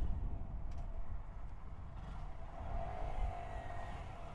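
Honda Grom's 125 cc single-cylinder engine running at low speed in traffic, under a low wind rumble on the mic; the sound slowly eases off as the bike slows.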